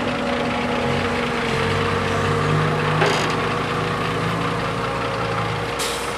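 Heavy diesel machinery engine running, its note deepening under load from about a second and a half in, with one clunk around halfway and a short hiss near the end.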